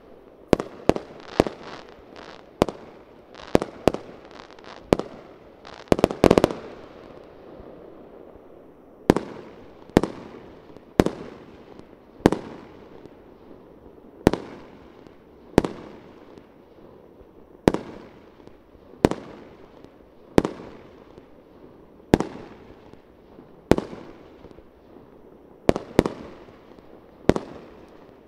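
Fireworks shells bursting in a long string of sharp bangs, each trailing off in an echo. They come in a quick cluster about six seconds in, then settle to roughly one bang every second or so.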